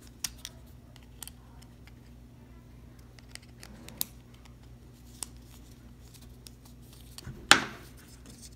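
Faint clicks and scrapes of a flat screwdriver turning a small barrel screw into a snap fitting on a knife sheath, a few sparse ticks over a low hum, with one louder knock near the end.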